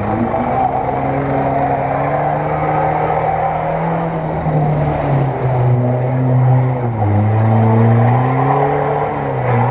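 Lada Niva (VAZ 2121) engine revving as the off-road car pushes through a water-filled mud trench. The engine note dips and climbs again several times with the throttle, and is loudest near the end as the car comes close.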